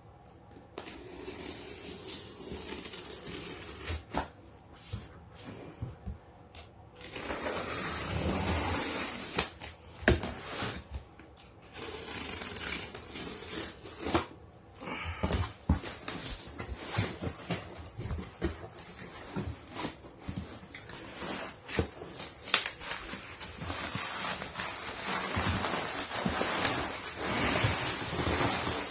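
Cardboard shipping box being opened by hand: irregular rustling and scraping of cardboard and packing, with many scattered knocks and clicks.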